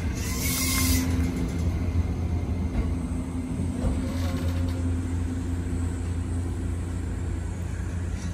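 JR East E261 series electric train standing at the platform, its equipment giving a steady low hum. A short hiss comes about half a second in.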